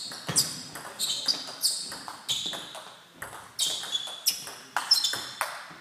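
Table tennis rally: the ball clicking sharply off the bats and bouncing on the table in quick alternation, a dozen or more hits at about two to three a second, each with a short hall echo.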